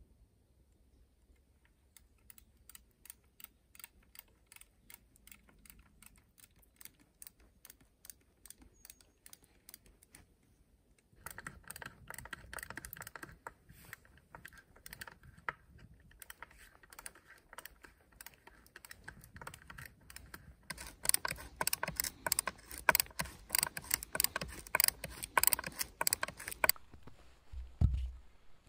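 Knife blade cutting and shaving a wooden pole: a quick run of small clicks and scrapes, several a second, growing louder and denser in the second half. A dull thump near the end.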